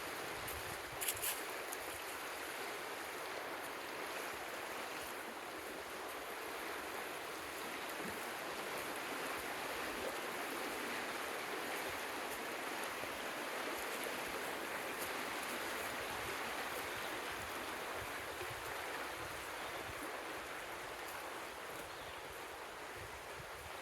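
Creek water running steadily, with two short clicks about a second in.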